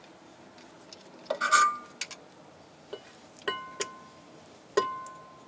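A steel C-clamp clinking against a cast-iron brake caliper and its metal piston as the clamp is set to press the piston back into its bore. There are several sharp metallic clinks, and the two later ones ring on briefly as clear tones.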